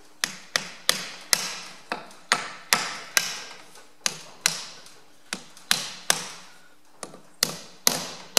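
A ball-pein hammer tapping the metal rim of a Sure Seal on a Ferguson TE20 rear axle: about twenty light, sharp metallic taps, two to three a second with short gaps, each ringing briefly. The taps drive the seal's front lip into the bearing groove, working around the seal to seat it evenly.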